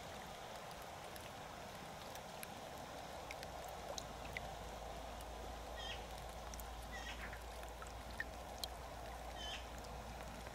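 Quiet outdoor background with a steady low hiss, over which birds give scattered short chirps several times.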